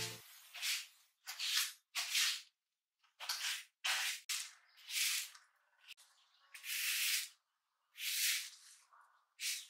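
Plastic-bristled broom sweeping pine needles across stone paving: about ten short swishes, roughly one a second, with brief pauses between strokes.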